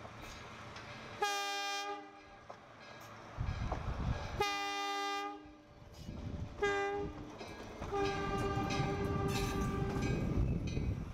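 Iowa Traction Railroad steeple cab electric locomotive No. 50 sounding its chime horn in the grade-crossing pattern of long, long, short, long, the last blast held longest. Between and under the blasts comes the low rumble of the tank-car train rolling past.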